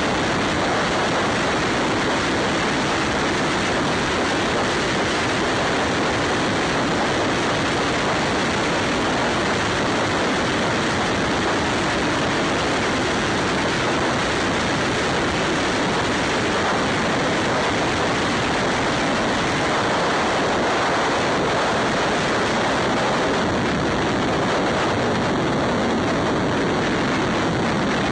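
Steady wind rush over the microphone of a camera riding on a Ducati Scrambler motorcycle at highway speed, mixed with the noise of the moving bike.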